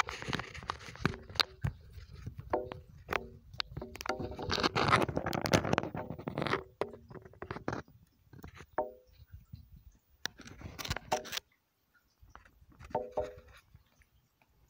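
Irregular scraping and rustling handling noise with many sharp clicks, busiest in the first half and thinning out near the end, with a few brief short tones among it.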